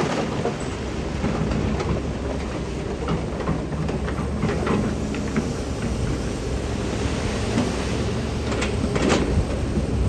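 Heavy diesel earthmoving machinery running steadily, with scattered clanks and rattles, stronger about nine seconds in.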